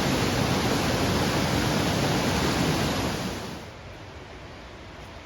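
Waterfall on a mountain stream rushing loudly, then falling away sharply to a much fainter steady hiss about three and a half seconds in.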